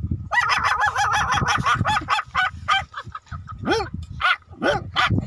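A man imitating a small dog with his voice: a quick run of short, high yelps for about two and a half seconds, then a few separate yelps.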